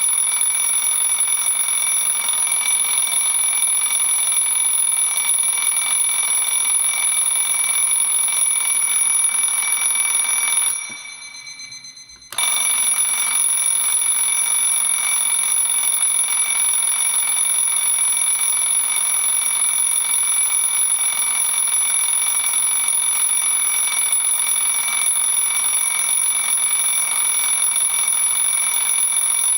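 Loud twin-bell alarm clock ringing. About eleven seconds in the ringing stops and dies away over a second and a half, then starts again suddenly.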